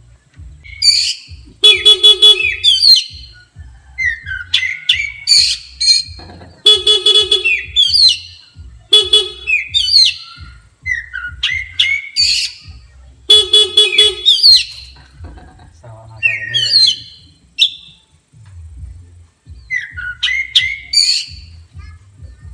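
Oriental magpie-robin (kacer) singing loudly in rapid whistled phrases, agitated by a horn. Three or four times a short, buzzy horn-like honk sounds among the phrases.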